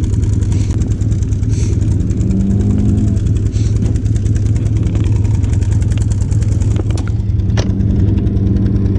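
Small boat motor running steadily with an even pulsing hum, a higher note joining it about two seconds in and again near the end.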